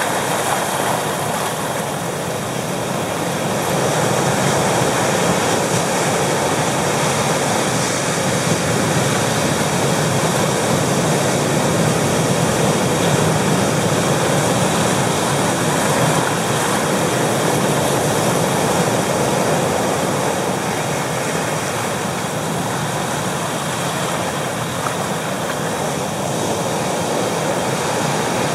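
Pacific Ocean surf breaking over shoreline rocks: a continuous rush of waves and washing foam that swells and eases slowly as the waves come in.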